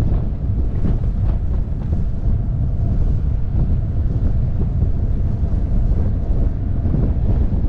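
Wind buffeting the microphone of a camera on a moving motorcycle: a steady, dense low rumble with no breaks.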